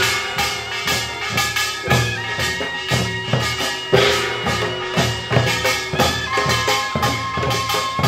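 Samulnori percussion ensemble playing: janggu hourglass drums and buk barrel drums beat a fast, driving rhythm while the small kkwaenggwari gong clangs, with long held tones over the beat.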